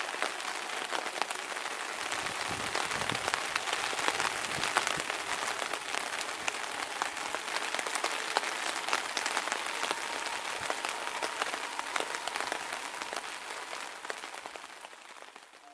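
Steady rain falling, a dense patter of drops hitting surfaces, fading out near the end.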